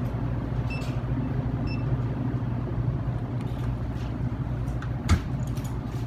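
Steady low hum of machinery in a blood-bank workroom, with light clatter and rustling as plastic blood bags are handled and a sharp knock about five seconds in. Two faint short beeps sound about a second in and again a second later.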